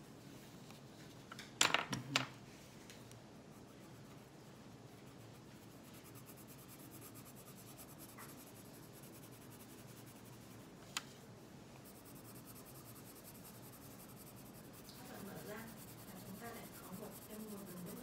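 Coloured pencil scratching faintly on paper. A quick cluster of sharp knocks comes about two seconds in, and one more sharp click near the middle.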